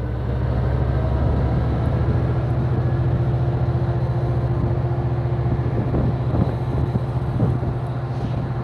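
Exo commuter train's diesel locomotive running close by with a steady low hum, and a few clicks during the second half.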